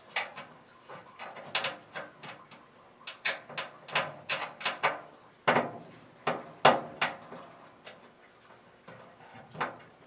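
Irregular sharp metallic clicks and clunks as the blower housing is worked and lined up against the furnace's sheet-metal cabinet, with the two loudest knocks a little past halfway.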